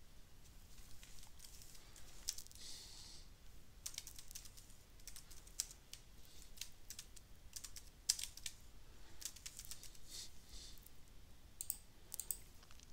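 Faint typing on a computer keyboard: irregular key clicks, some in quick runs, mixed with a few mouse clicks.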